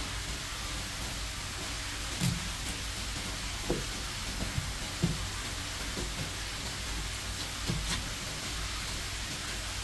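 A knife knocking and tapping on a cutting board about half a dozen times at uneven intervals while a striped beakperch is filleted, over a steady hiss.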